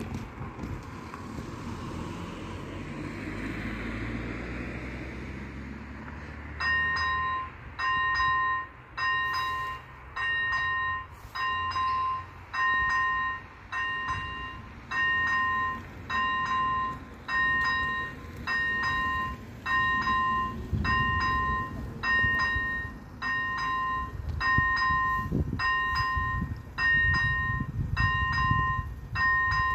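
A car drives over the crossing, its engine fading away over the first few seconds. About seven seconds in, the level crossing's electronic warning bell starts, ringing one steady two-note tone about once a second: the crossing has activated for an approaching train. A low rumble builds under it in the last ten seconds.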